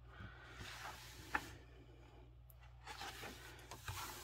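Pages of a paperback coloring book being turned by hand: soft paper rustles and swishes, with one light tap about a second in.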